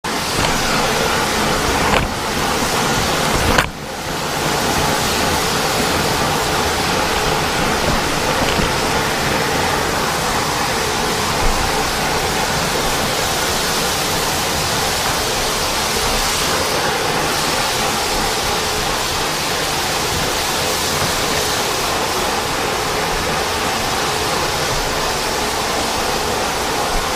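Floor buffer running with a sanding screen, abrading the dried first coat of polyurethane on a red oak floor before recoating: a loud, steady noise that dips briefly about four seconds in.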